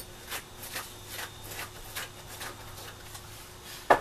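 A glue applicator brushing cement onto a plastic end cap and pipe in quick swishing strokes, about two to three a second, with a sharper knock just before the end.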